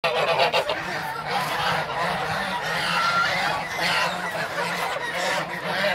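A flock of domestic geese, Toulouse geese among them, honking and chattering without a break, many calls overlapping, over a steady low hum.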